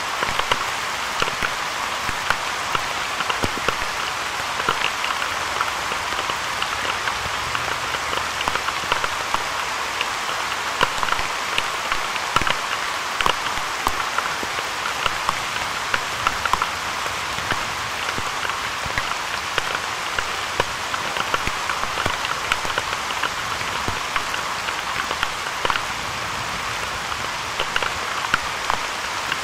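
Steady rain, with many separate drops ticking sharply on a hard surface close to the microphone.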